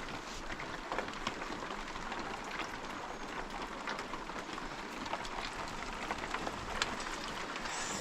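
Steady rain falling, an even hiss dotted with the ticks of single drops striking a surface.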